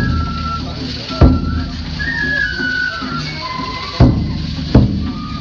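Japanese festival music: a flute playing a held, stepping melody, with heavy drum strikes three times at uneven spacing.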